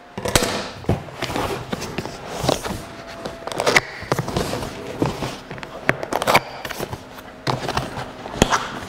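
A cardboard box being handled and opened on a wooden table: scraping and rustling of cardboard with a string of irregular knocks and taps as the box is stood up and its lid pulled open.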